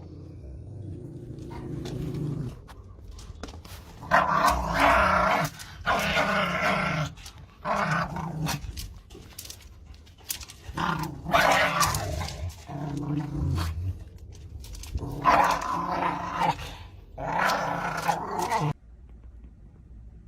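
A dog growling in a series of about seven drawn-out bursts, each a second or so long, stopping shortly before the end.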